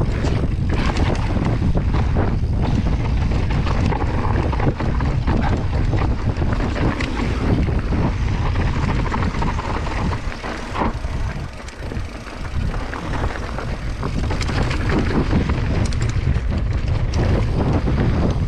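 Wind rushing over the microphone with the rattle and crunch of a mountain bike descending a dry dirt trail: tyres on loose dirt and small, frequent knocks from the bike over bumps. It eases briefly about two-thirds of the way through.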